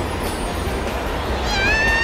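Cartoon sound effect of a whirling snowstorm: a steady rushing wind with a deep rumble under it. A high, drawn-out cry starts about one and a half seconds in.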